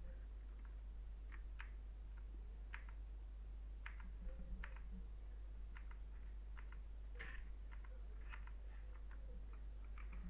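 Keys of a computer keyboard pressed one at a time, giving irregular, spaced-out clicks over a steady low hum.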